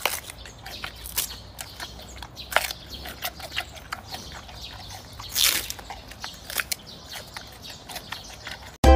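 Chihuahua gnawing on a long chew stick held in a hand: irregular crunching and clicking bites, with a louder crunch about five and a half seconds in.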